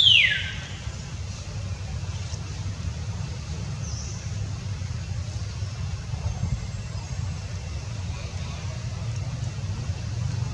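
Steady low rumble of background noise, like distant traffic or an engine, with a brief high squeal that falls sharply in pitch right at the start.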